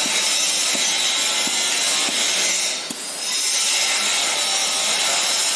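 CNC fiber laser cutting machine cutting steel plate: a steady, loud hiss from the cutting head, briefly dipping about three seconds in.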